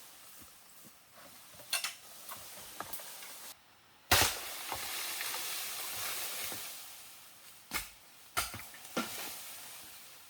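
Food sizzling in a hot pan: the sizzle starts suddenly about four seconds in and fades over a few seconds. A few sharp clicks and knocks fall before it and near the end.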